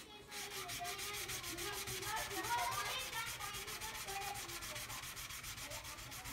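Double-edged carving knife blade rubbed in quick, even strokes across wet waterproof sandpaper: a steady scratchy rasping of many short strokes a second, starting just after the beginning.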